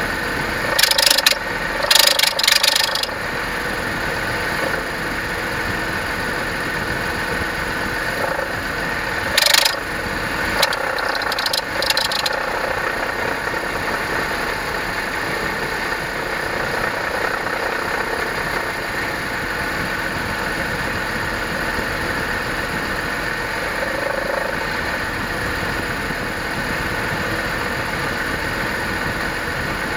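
Car engine idling with a steady, even-pitched noise that the owner suspects comes from a faulty AC compressor; it is heard with the heater, fan or AC switched on. Several short bursts of hiss come in the first dozen seconds.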